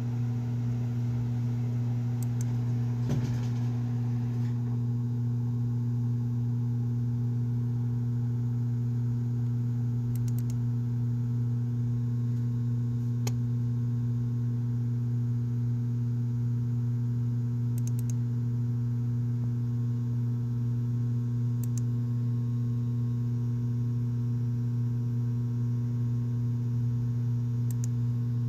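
A steady, loud low hum made of a few unchanging tones, like a running machine or electrical hum, with a few faint clicks.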